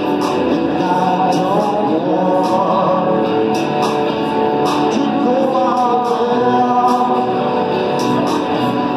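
Live rock band playing through the PA: electric guitar over drums, with regular sharp cymbal or snare strokes keeping the beat.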